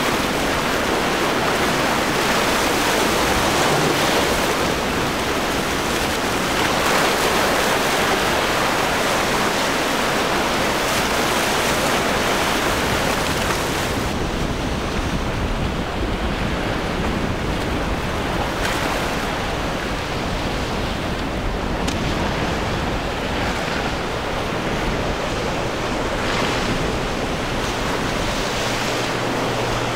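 Breaking surf and strong wind, with wind buffeting the microphone: a steady noisy rush that grows duller about halfway through. A low boat-engine hum comes in near the end.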